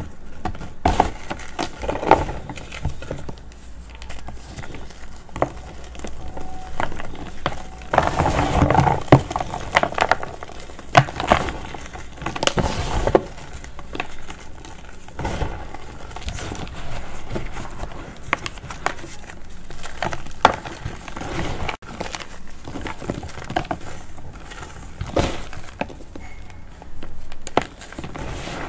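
Reformed gym chalk chunks crushed and crumbled by hand: a continuous run of dry crunching and crackling, with small pieces dropping back onto the pile. The crunching is busiest about eight seconds in and again around twelve seconds in.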